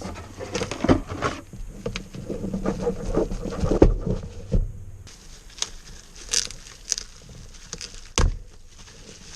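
Hands working on computer hardware: an irregular run of clicks, light knocks and rustling, with a sharper knock about 4 s in and again near 8 s.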